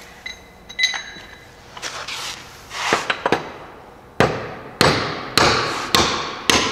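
A couple of light ringing metallic clinks, then, a little past halfway, a steady series of about five hammer blows roughly half a second apart. The hammer is striking the mower deck's spindle assembly, knocking it up through its housing during a spindle bearing replacement.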